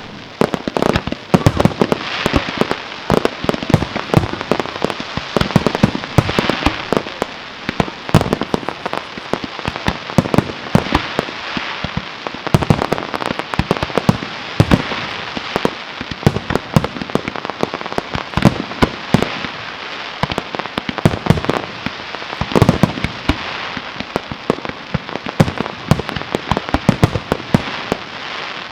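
Fireworks display: a dense, continuous barrage of shell bursts and crackling reports, many bangs a second, with a few heavier booms standing out about three-quarters of the way through.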